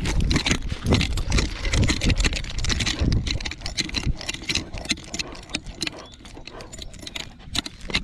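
Handling noise from a camera on a Weimaraner's collar: rapid clicking, rattling and rubbing as the dog moves. It is heaviest, with a low rumble, for the first three seconds or so, then eases to lighter clicks.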